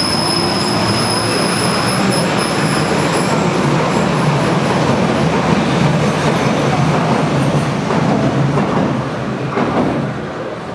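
Old U-Bahn train running along the platform and out of the station: a loud, continuous rumble of wheels on rail, with a high steady whine over it for the first few seconds. The noise falls away near the end as the last car clears the platform.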